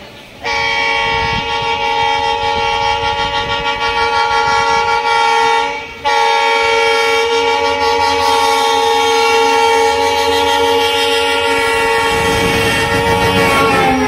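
Horn of a WDP4D diesel locomotive sounding a chord of several tones in two long blasts, the first about five seconds and the second about eight, with a brief break between. Near the end the horn drops in pitch as the locomotive passes, and the rumble of the train rises under it.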